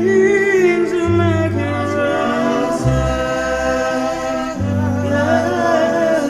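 Music: a song with a held vocal melody over sustained bass notes that change every second or two.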